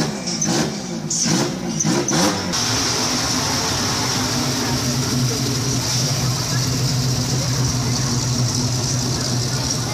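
A car engine revving in quick blips. About two and a half seconds in it gives way to the steady low engine note of a late-1960s Ford Mustang coupe rolling slowly past.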